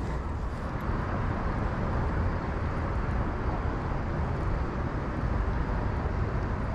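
Steady rushing of river current flowing among boulders, an even noise with a low rumble under it.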